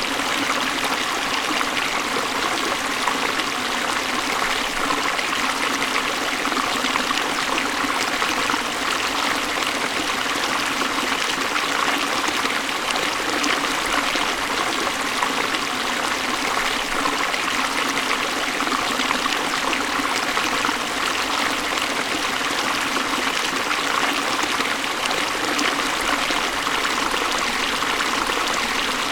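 Hill river flowing, a steady, unbroken sound of moving water.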